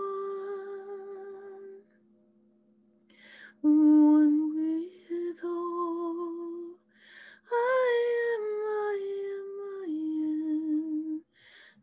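A woman's voice toning wordless, sustained notes in three long held phrases, each slowly shifting pitch, with sharp breaths drawn between them. There is a pause of about a second and a half after the first phrase, and a faint low steady tone underneath fades out around the middle.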